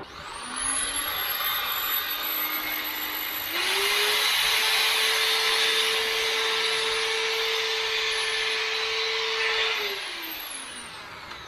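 Electric drill running while it enlarges holes in wooden blocks to take 5 mm nails. It spins up, speeds up and gets louder about three and a half seconds in, then winds down near the end.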